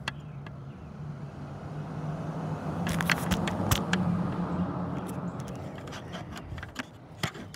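Low engine hum of a motor vehicle that swells and then fades, as of a car going past, with a few sharp clicks about halfway through.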